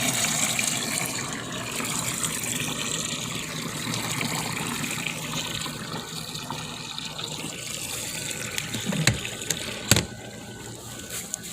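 Water running into the plastic wash tub of a portable twin-tub washing machine as it fills for a rinse, steady at first and fading over several seconds. Two sharp knocks near the end.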